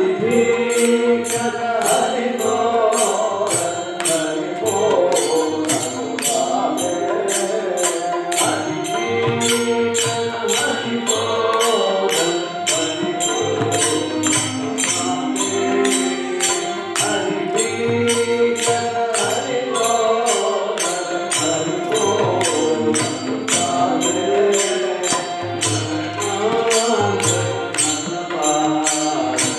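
A devotional bhajan sung by a group of men, accompanied by an electronic keyboard and a barrel hand drum, with a steady metallic percussion beat of about two strokes a second.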